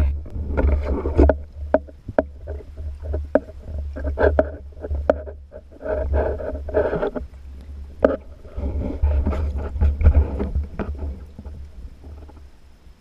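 Underwater sound as picked up by a camera in a waterproof housing: a constant low rumble of moving water with irregular knocks, clicks and rustling handling noise as the diver moves with the speargun, dying down near the end.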